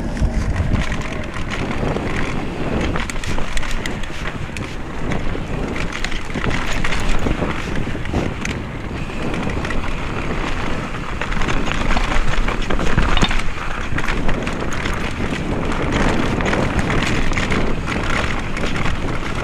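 Wind buffeting an action camera's microphone over the clatter of a mountain bike (a Specialized Kenevo) running fast down a rough dirt trail: tyres on dirt and frequent small knocks and rattles from the bike over bumps.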